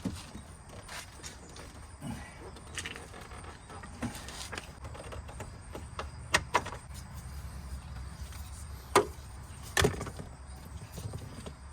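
Scattered sharp clicks and light knocks of small parts being handled on a truck door while trim and a grommet are worked loose, over a low steady hum. The clearest clicks come about six and a half seconds in and twice more near nine and ten seconds.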